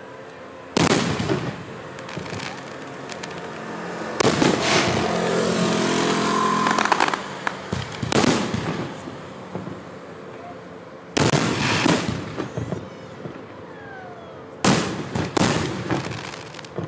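Aerial fireworks shells bursting overhead: sharp booms at irregular intervals, about eight in all, some in quick pairs and triples near the end. The second boom runs on into a few seconds of dense crackle and rumble.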